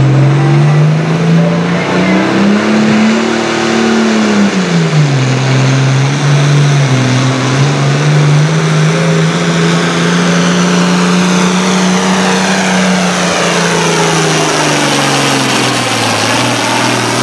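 International Harvester farm tractor's diesel engine working hard under load while pulling a weight-transfer sled. Its pitch climbs a couple of seconds in, drops back about five seconds in, holds steady for several seconds, then sags lower near the end.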